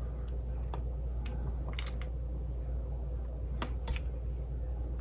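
Scattered light clicks and taps, irregular and a few seconds apart, from kitchen handling while a lasagna is being assembled, over a low steady hum.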